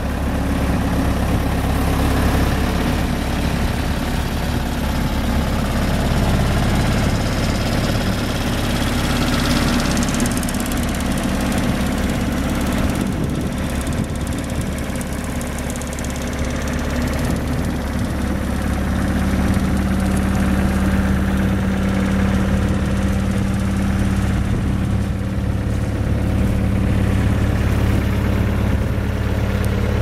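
Bobcat S205 skid steer loader's diesel engine idling steadily.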